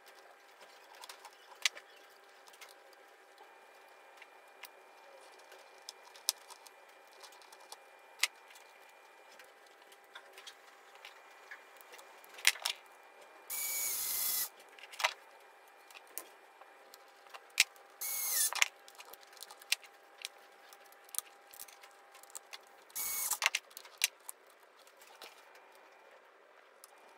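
Cordless screwdriver driving screws in three short runs, the first about a second long and the others shorter, its motor whining. Scattered small clicks and taps of handling parts come in between.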